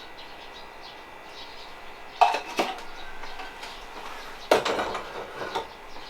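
Dishes and utensils clinking as they are handled: two sharp clinks a little over two seconds in, then a quick cluster of clinks about four and a half to five and a half seconds in.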